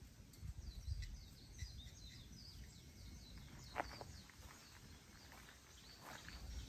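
Faint twittering of small birds: quick runs of short, high chirps, busiest in the first few seconds, over a low rumble.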